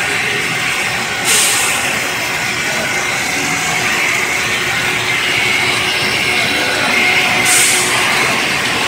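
Corn puff snack extruder running at full production, a loud steady mechanical din with a faint high whine. Two short bursts of hiss cut in, about a second in and again near the end.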